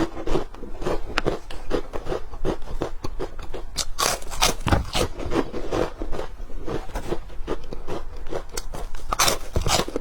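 Crisp shrimp chips (prawn crackers) being bitten and chewed: a dense run of sharp crunches and crackles.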